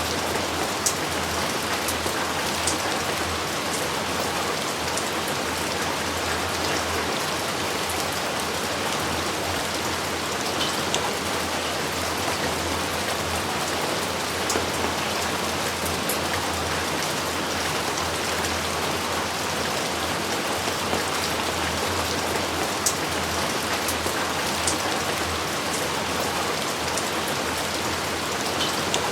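Heavy rain falling steadily, with a few sharp ticks of individual drops striking close by.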